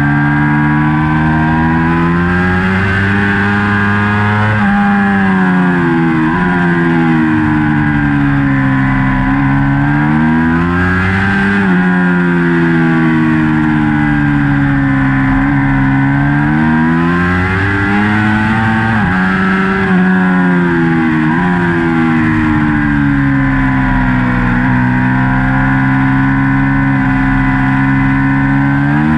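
2019 Ducati Panigale V4's V4 engine under race load, heard from on board. Its pitch climbs and falls again and again through the corners, with sudden steps where the rider changes gear.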